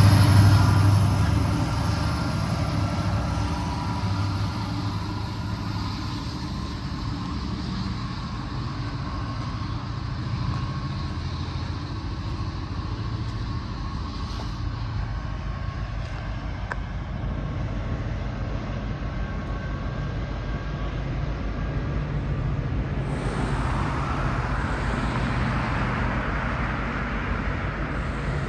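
Two Norfolk Southern SD70ACU diesel helper locomotives on the rear of a freight train pass close by, loud at first and falling away over a couple of seconds, their engine drone and rumble lingering as they move off. Road traffic noise swells up near the end.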